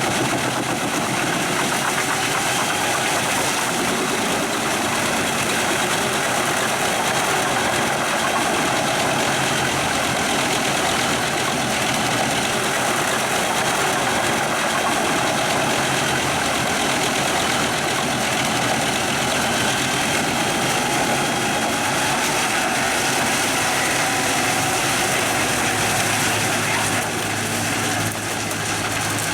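A Pezzolato PTH 1400/1000 truck-mounted drum wood chipper running, its 730 hp Scania truck engine driving the drum in a loud, steady mechanical din. Near the end the sound dips briefly and changes.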